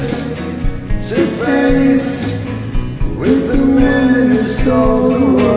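Karaoke duet singing wordless held notes that slide up into each phrase, over a rock backing track.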